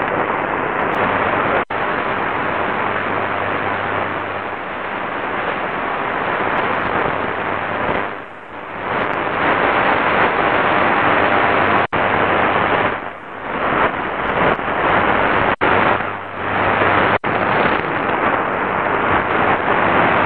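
Medium-wave AM reception from a Qodosen SR-286 portable radio's speaker: steady static and noise, with a low hum at times. It is cut four times by very brief silences as the radio is tuned from one frequency to the next.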